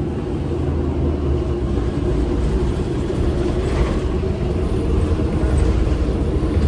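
Orion VII Next Generation transit bus heard from inside the passenger cabin: a steady low drivetrain rumble with a steady hum, growing a little louder after about two seconds.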